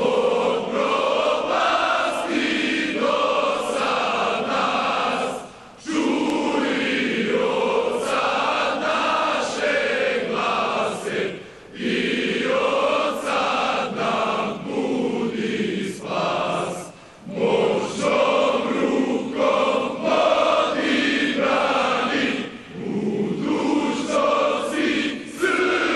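A massed choir of young officers singing together without accompaniment, in long sustained phrases broken by short pauses about every five to six seconds.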